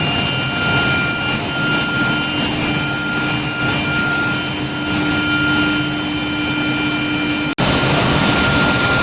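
Induction heating furnace running: a loud steady rushing noise with several high-pitched whining tones held over it. The sound drops out for an instant about seven and a half seconds in.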